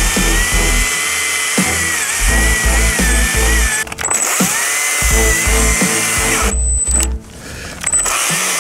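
STIHL MSA 120 C battery chainsaw running and cutting through a birch stump, its motor whine wavering in pitch as the load changes. It eases off briefly just before four seconds in and again for about a second near the end. Background music plays underneath.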